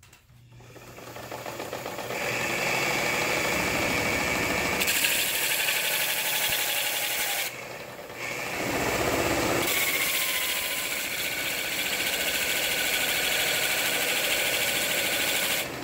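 A sewing machine's small electric motor spins up a sanding disc. A small metal rod is then ground against the disc, a harsh hissing grind with a short break about halfway, which stops abruptly near the end. The small motor bogs down a little under the load.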